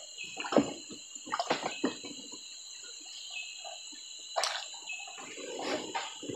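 Irregular splashes and drips of stream water as hands work in the shallows, over a steady high insect drone.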